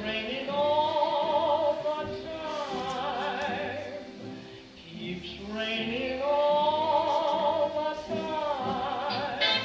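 A song with a singer holding long notes with heavy vibrato: two long sung phrases, each rising in pitch, over a soft accompaniment.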